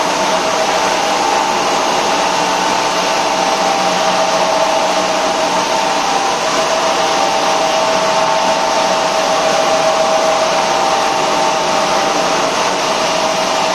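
HDPE plastic recycling machinery running steadily: the electric motors of the washing and conveying line make a continuous whirring drone with a couple of held tones, unchanging throughout.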